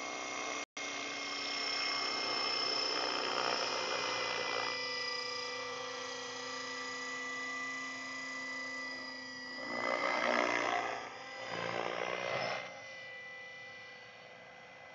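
T-Rex 600 radio-controlled helicopter flying out of sight: a steady multi-toned whine from its motor and rotors. It swells louder twice in the second half as the helicopter manoeuvres, then drops quieter near the end, with a momentary dropout in the sound near the start.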